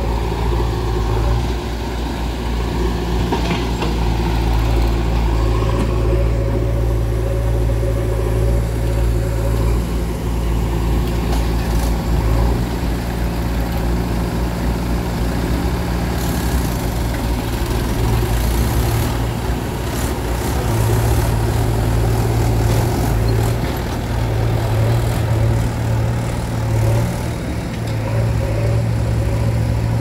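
Heavy diesel engine running steadily at a low, even speed, with a few light clatters about halfway through.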